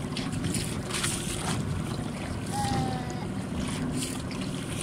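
A small boat under way at sea: a steady low hum with water splashing against the hull and wind on the microphone.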